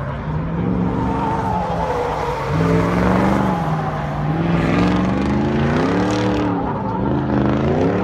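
Ford Raptor pickup's engine revving hard while the truck drifts. Its pitch holds for the first few seconds, then rises and falls in repeated swells over the last few seconds as the throttle is worked, over a steady rush of tyre noise.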